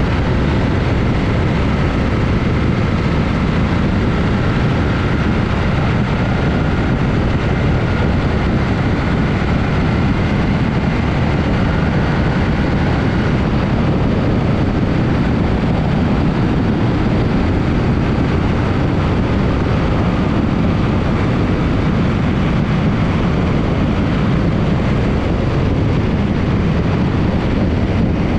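Heavy, steady wind noise on the microphone of a camera mounted on a moving BMW R1200GS Adventure motorcycle, largely burying the bike's running boxer-twin engine.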